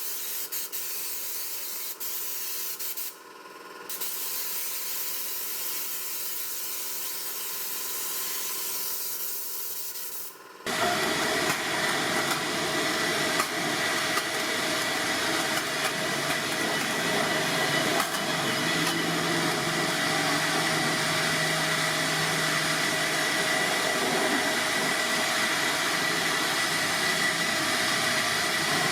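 A cleaning spray hissing steadily, with a short break about three seconds in. About ten seconds in it stops, and a louder motor-driven blower starts, running steadily with a high whine.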